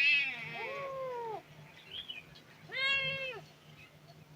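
Stray kittens meowing in distress: a loud high cry right at the start, then two long meows that rise and fall in pitch, about a second and three seconds in, with a faint call between them.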